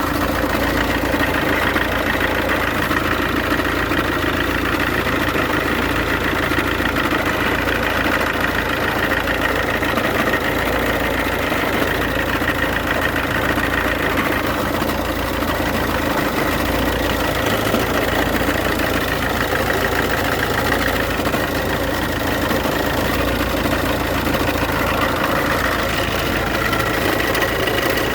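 Iveco Daily diesel engine idling with a steady high whistle and rattle from the belt-driven accessories, a noise that goes away with the belt off; the owner traces it to the alternator.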